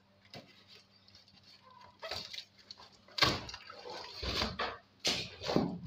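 Corrugated cardboard box with packing tape being handled and pulled about: scraping and crackling cardboard in uneven bursts. It starts a couple of seconds in, after a few small clicks, and the loudest scrape comes about three seconds in.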